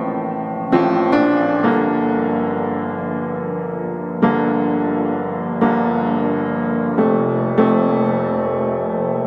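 Background piano music: slow chords, each struck sharply and left to ring.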